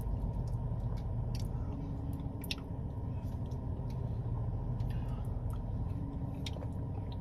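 Steady low rumble inside a parked car's cabin, with a few light clicks of a plastic spoon against a cup of mashed potatoes as he eats.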